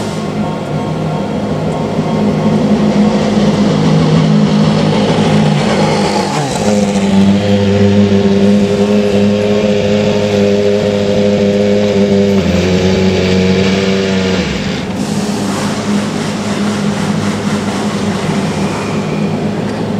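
Racing car engines running, loud and steady. A stack of engine tones drops in pitch about six seconds in, steps down again near twelve seconds, and falls away about fifteen seconds in, leaving a steady wash of engine noise.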